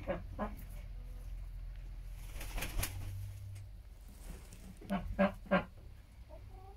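Brown hens sitting on the nest in straw, giving low, short clucks: two at the start and a quick run of three about five seconds in.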